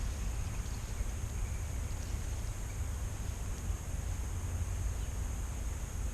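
Steady low wind rumble on the microphone over a faint even hiss, with no distinct splashes or knocks.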